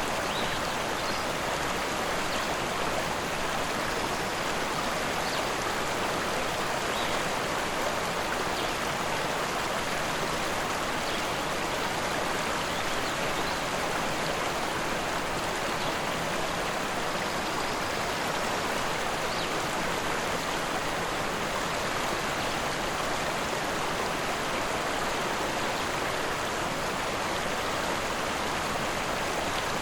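Fast-flowing river rushing steadily over its bed, an even, unbroken wash of water noise.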